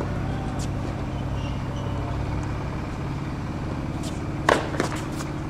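A steady low rumble, then a tennis serve struck about four and a half seconds in: one sharp pop of racket on ball, followed just after by a quieter knock.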